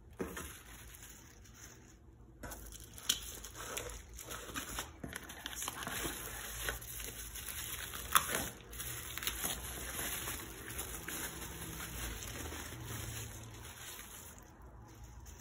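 Bubble wrap rustling and crinkling as hands smooth it down and peel it back, with a sharp snap about three seconds in and another about eight seconds in. The rustling dies down near the end.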